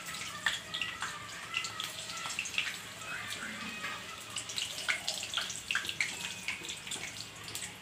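Maida dough cup deep-frying in hot oil around a steel bowl mould: the oil sizzling and bubbling with a steady run of small crackling pops.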